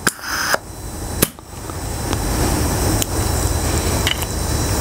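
Red rubber air hose being handled and lifted while it is checked for kinks: a few sharp clicks and knocks, then a low, steady rumbling scrape.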